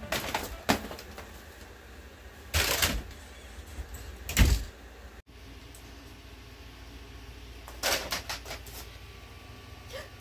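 Scattered knocks and thumps of someone moving about a room, the loudest a heavy low thump about four and a half seconds in, then a quick run of light clicks near the end, over a steady low hum.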